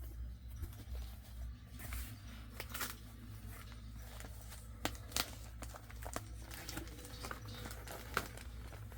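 A package of comic books being opened by hand: packaging crinkling and tearing, with scattered sharp clicks and taps over a low steady hum.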